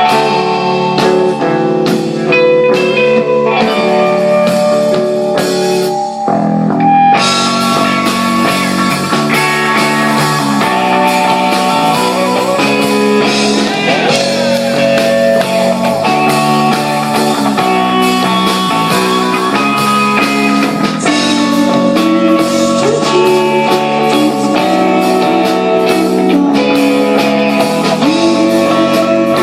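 Live rock band playing an instrumental passage: electric guitar over bass and drums in a psychedelic, shoegaze-leaning style. The first few seconds are sparser picked guitar notes, and about six seconds in the full band comes in and the sound grows much denser.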